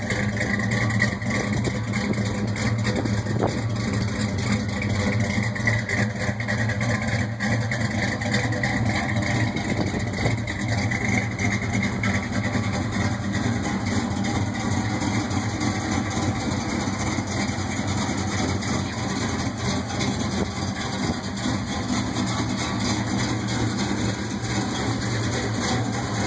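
A 1968 Plymouth Satellite's 400 cubic-inch big-block Mopar V8 with a Hughes Engines Whiplash cam, idling steadily through 1 7/8-inch headers and Flowmaster 50 series mufflers.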